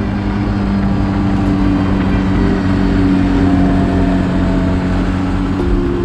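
Quad bike (ATV) engine running steadily, a constant motor drone under rough mechanical noise.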